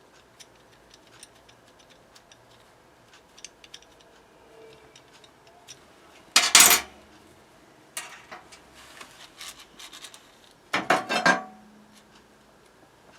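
Small metallic clicks and clinks from handling a pneumatic blind-rivet gun and its rivets, then two short loud bursts about 6.5 and 11 seconds in as the air riveter cycles, pulling a rivet each time.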